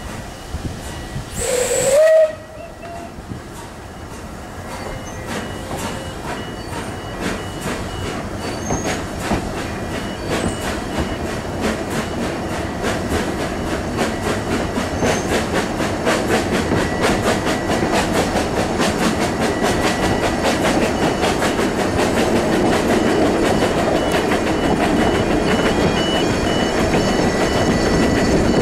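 A Beyer Peacock 2-4-0 narrow-gauge steam tank engine gives a short whistle blast with a rush of hiss, about two seconds in. Then the train rumbles along and gathers speed, heard from a coach, its wheels clicking over the rail joints faster and faster as the running noise grows louder.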